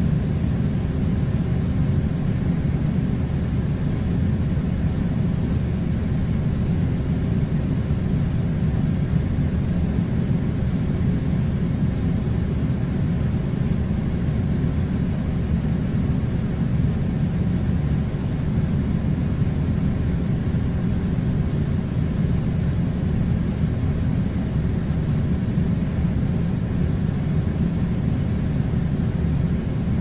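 Steady, unchanging low rumbling noise, like a constant machine or engine drone.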